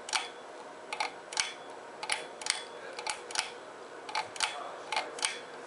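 Ceiling fan pull-chain speed switch clicking over and over as the chain is pulled repeatedly, about two clicks a second, often in close pairs. The switch is being cycled with the power off to discharge the old motor capacitor.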